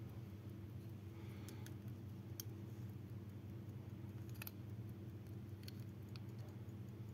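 Small metal pocket watch being handled: a few faint, irregular sharp clicks, about seven in all, over a steady low hum.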